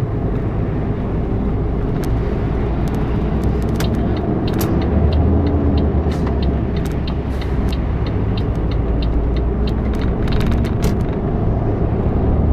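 Lorry cab interior noise while driving on a wet, slushy motorway: a steady low engine rumble with road and tyre noise. From about three seconds in until near the end, a run of light, evenly spaced ticks, two to three a second, sits on top.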